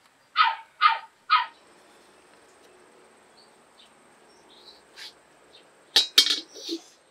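A dog barks three times in the first second and a half. Near the end there is a sharp metal clatter as a steel wok is handled on the wood-fired stove.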